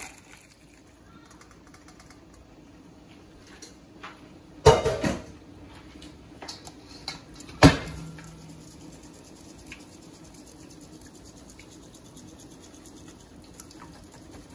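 Stainless steel mesh strainer full of spaghetti being shaken to drain it over a metal pot, the metal clanking loudly against the pot twice, about four and a half and seven and a half seconds in, with lighter clinks between.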